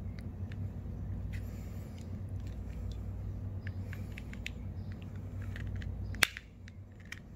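Small clicks and ticks of a metal precision screwdriver prying at the seam of a plastic TV remote casing, with one sharp, loud click about six seconds in. A low steady hum underneath drops away at that click.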